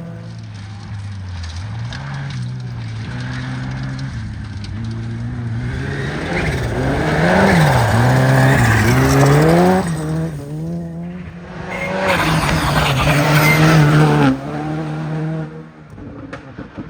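Rally car engine at high revs, its pitch climbing and falling through quick gear changes and lifts. It grows loud twice, about six and twelve seconds in, and drops away sharply about two seconds before the end.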